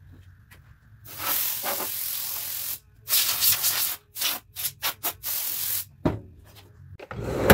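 Compressed air spraying in bursts into the inside of a telescope tube to blow out dust: one long blast, a shorter one, a quick string of short puffs, then another brief blast. A loud bump near the end.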